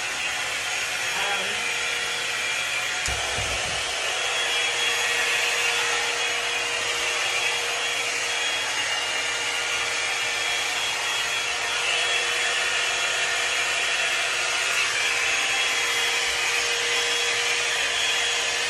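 Electric hot air brush (one-step hair dryer brush) running steadily, its fan blowing hot air with a constant whir and a faint steady hum, with a brief low bump about three seconds in.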